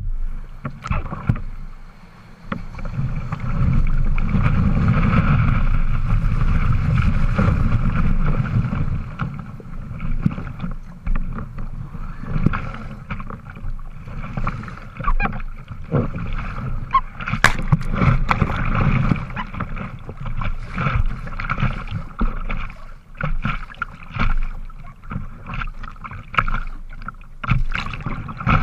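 Surf water rushing and splashing around a kayak's bow and paddle strokes as it paddles through small breaking waves, with sharp splashes throughout. A louder rush of whitewater from about four to nine seconds in.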